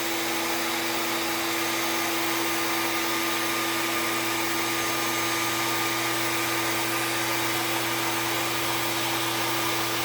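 A high-speed electric motor running steadily, with a strong airy hiss and a constant hum.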